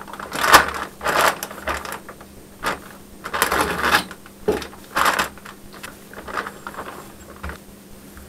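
Thin plastic packaging bag crinkling and rustling in irregular bursts as it is slit with a utility knife and pulled off a coiled cable. The bursts thin out near the end.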